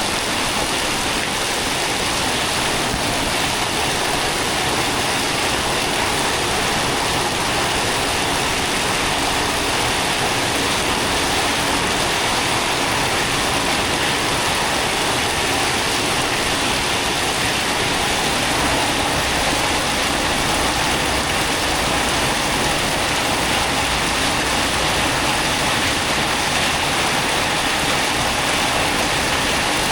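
Steady heavy rain, an even rushing hiss with no pauses.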